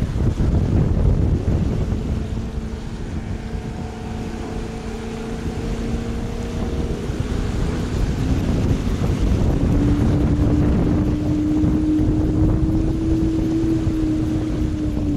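Outboard motor driving a small homebuilt bass boat at speed: a steady engine note that rises in pitch and grows louder about two-thirds through as the boat comes closer. Heavy wind buffeting on the microphone runs underneath.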